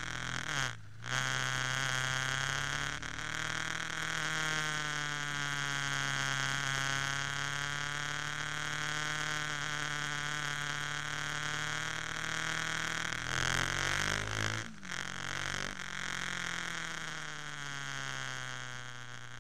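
Ducati 998's L-twin engine running steadily on the road, its pitch drifting gently up and down. Two brief sharp breaks, about a second in and about fifteen seconds in, where the engine note drops away and then picks up again.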